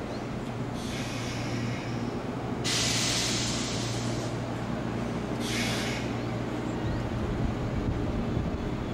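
Standing 201-series electric train with a steady low hum from its equipment, broken by hisses of compressed air: a short one about a second in, a louder one of nearly two seconds about three seconds in, and a brief one near six seconds. A low rumble sets in about seven seconds in.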